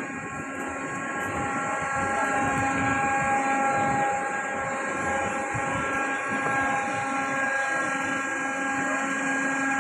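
Flying sofa amusement ride's machinery running: a steady mechanical whine of several held tones over a hiss.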